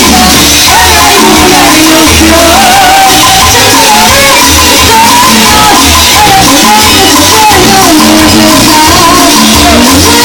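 Loud Latin dance music with a heavy pulsing bass, a wavering sung or played melody line and a shaker.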